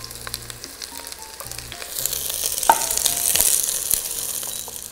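Diced onion, carrot and root vegetables sizzling in hot oil in a cast-iron pot, being stir-fried until soft. A spatula scrapes and clicks against the pot, with one sharp knock a little under three seconds in, and the sizzle grows louder from about two seconds in.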